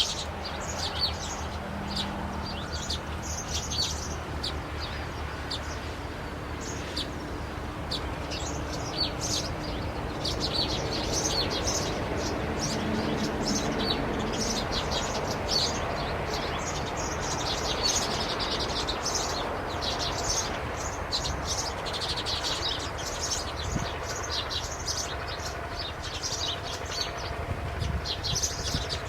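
Small birds chirping busily, many short high chirps in quick succession throughout, over a low steady hum.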